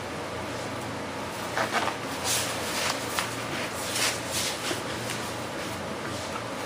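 Paint-mask sheets rustling as they are handled, several soft swishes, over a steady low hum.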